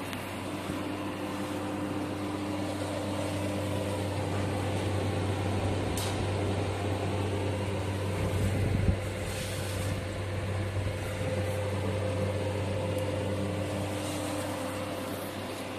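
Laser hair removal machine running, its cooling fans giving a steady hum with a few held tones. A brief low thump around the middle.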